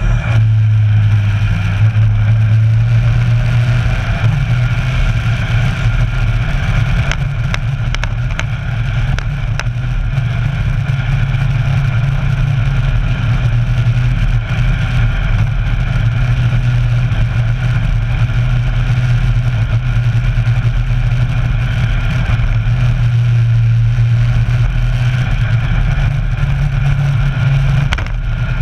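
Kawasaki Versys 1000's inline-four engine running steadily while riding, heard through a camera mounted on the bike.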